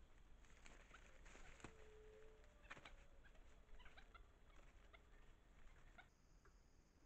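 Very faint crackles and rustles in dry leaf litter, with a short call about two seconds in, over a near-silent background.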